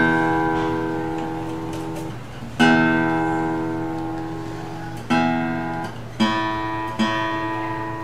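Seagull Entourage cutaway acoustic guitar's open strings strummed about five times, each chord left to ring and fade, while a tuning peg is turned to bring the strings up to pitch.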